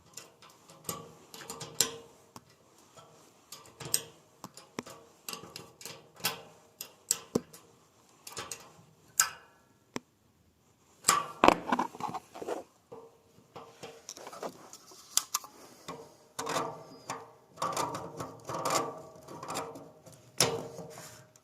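Irregular metallic clicks and taps of hand tools and fittings being worked on a Danfoss radiator valve. They pause briefly about ten seconds in, then come back as a louder clatter.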